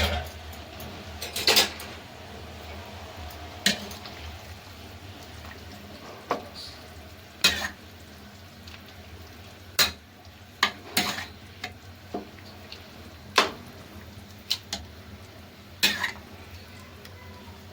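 Metal pots and utensils clinking and knocking while chicken is being prepared, about a dozen short, sharp knocks at irregular intervals over a steady low background hum.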